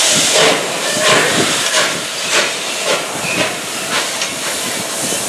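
Steam locomotive working, with evenly spaced exhaust chuffs a little more than half a second apart over a continuous hiss of steam.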